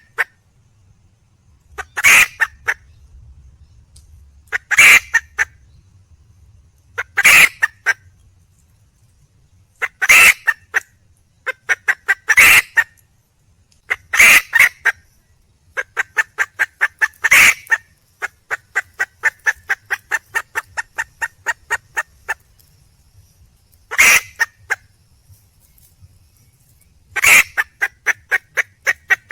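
Red junglefowl hen calling to attract a male: loud, short calls repeated about every two to three seconds. In between comes a long run of quick clucks, about three a second, with another run near the end.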